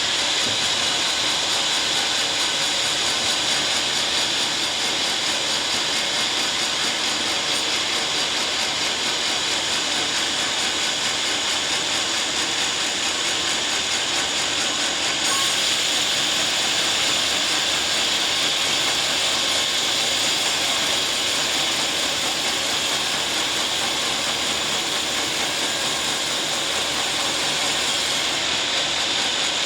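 Sawmill saw cutting through a teak log, running steadily without a break.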